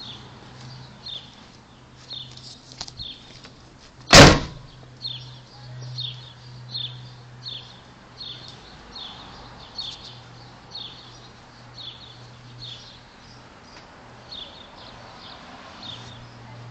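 A bird chirping over and over, short high chirps about twice a second, under a faint steady low hum. About four seconds in comes a single loud bang, like a door slamming.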